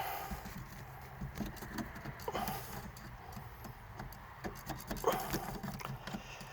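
Scattered light knocks and clicks of hands and materials being handled, with a few short squeaks near the start, about two and a half seconds in and about five seconds in.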